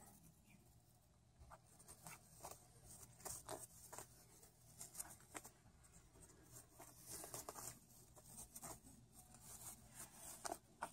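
Faint, irregular scratching and rustling of a white-bellied caique's claws and beak gripping a fabric curtain as it climbs.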